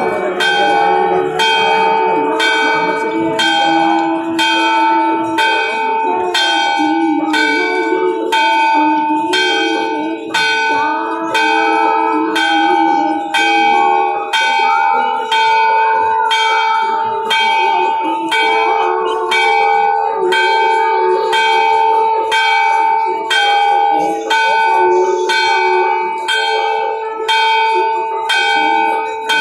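Hindu temple bell struck steadily about once a second, each stroke ringing on into the next.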